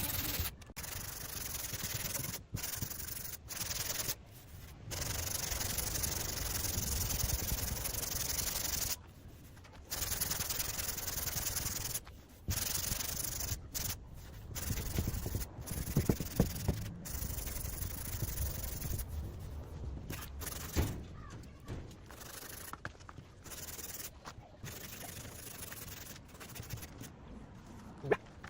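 Rubbing and scraping on a car's bodywork, heard as a run of short clips that cut in and out abruptly, with a few light knocks.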